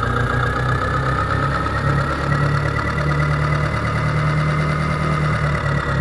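Tractor engine running steadily, cutting in suddenly at the start.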